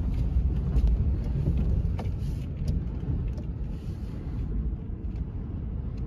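Low, steady rumble inside a vehicle's cab as it drives over a rough stubble field, with a few light knocks about two seconds in.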